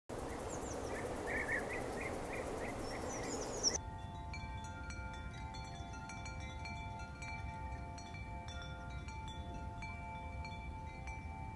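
Faint hiss with short high chirps for the first few seconds, then soft chimes ringing from about four seconds in, many overlapping tones left to sound, with light strikes now and then.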